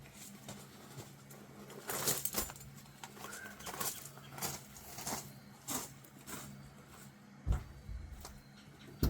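Scattered light clicks and rustles of hands handling parts or tools, with a heavier thump about seven and a half seconds in, over a faint steady hum.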